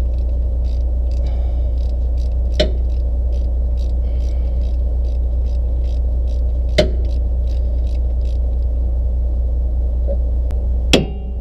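Steady low rumble of an idling engine under rapid light clicking of a hand wrench working the bolts on a motorhome driveline's U-joint, with a couple of sharper metal clicks. Near the end a hard metal strike as work starts on knocking the U-joint loose.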